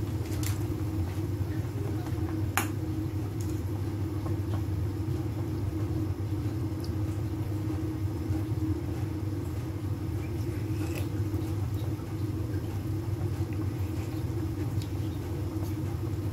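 Pot of fish-head soup at a rolling boil on a gas stove burner: a steady low rumble with a few small pops.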